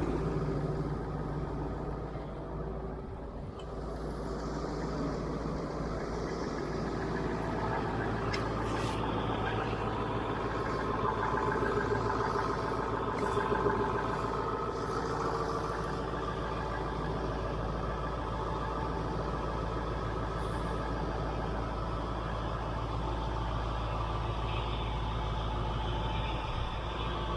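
Ford F-350 pickup's engine idling steadily, warming up shortly after a cold start.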